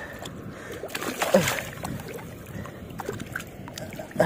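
Shallow seawater splashing and sloshing as a hooked trevally is pulled in to the shore, with a loud splash about a second in and another near the end.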